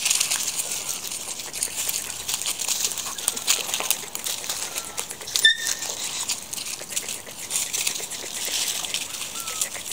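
Dry leaves and twigs rustling and crackling as dogs and a puppy move through leaf litter, with many small crackles. About five and a half seconds in there is one short, high squeak.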